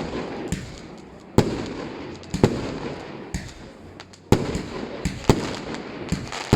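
Fireworks going off: a run of sharp bangs about once a second, with smaller cracks and crackling that trails away after each bang.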